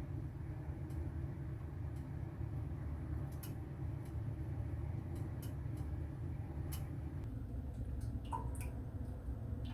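A steady low hum with scattered light clicks and ticks, and one short high ping about eight seconds in.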